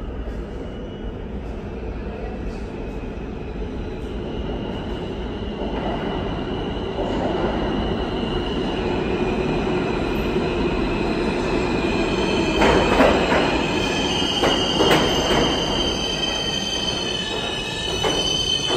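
R160A/B subway train approaching and pulling into the station. Its rumble builds steadily under a high, steady wheel squeal, with a few loud clanks in the last third as the cars come alongside.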